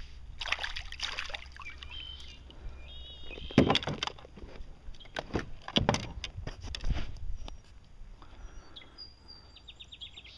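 A hooked largemouth bass splashing at the surface as it is played beside a kayak and lifted out. Several sharp splashes and knocks are heard, and a bird chirps in short runs a few times.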